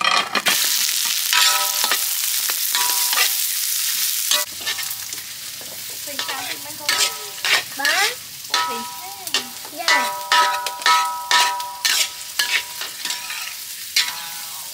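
Garlic, lemongrass, kaffir lime leaves and shallot hit hot oil in a steel wok and sizzle loudly at once. After about four seconds the hiss softens under a metal spatula stirring and scraping against the wok, with repeated ringing clinks.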